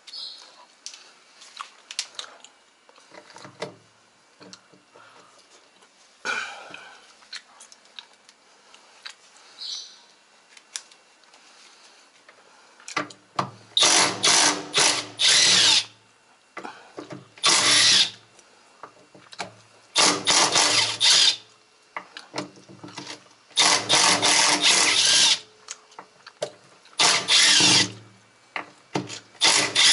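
Power drill-driver running in six short bursts over the second half, backing out hex-head bolts from a washing machine's casing. Before that come light clicks and the handling of parts.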